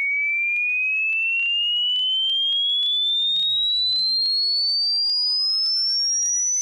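Electronic sine-wave test tone sweeping steadily upward in pitch, a single high whistle-like tone rising the whole time: the upper end of a low-to-high frequency sweep used to test speakers.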